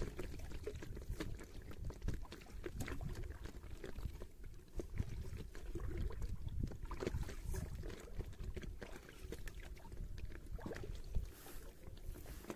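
Water sloshing and splashing around a small round coracle, heard muffled, with low rumbling and scattered knocks on the microphone.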